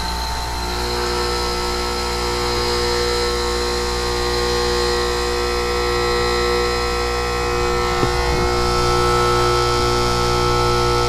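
Bryant heat pump outdoor unit's compressor running with a steady hum of several tones, its condenser fan disconnected so the coil runs cold for a defrost test. A short click sounds about eight seconds in, and the hum changes slightly after it.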